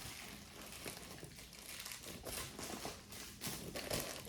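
Hands rummaging through a pile of fashion jewelry: faint crinkling with scattered small clicks and rattles, a little busier in the second half.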